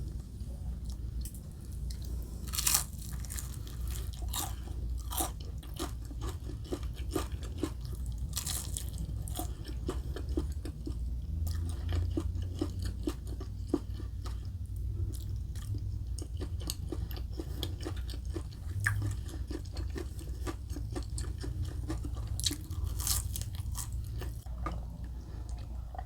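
Close-miked chewing with crisp crunches of breaded, fried chicken katsu, with sharp crunchy bites scattered throughout, the loudest about three seconds in and again near the end.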